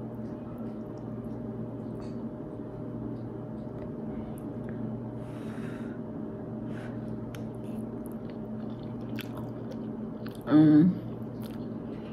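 A person eating noodles with a plastic fork from takeout containers: soft chewing with scattered small clicks and taps, over a steady low hum. About ten and a half seconds in, a brief loud vocal sound from the eater.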